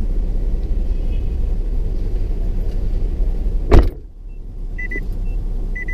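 A car door shuts with one loud thump about four seconds in. The steady low rumble heard before it drops sharply to a quieter cabin hum, and a few short high beeps follow.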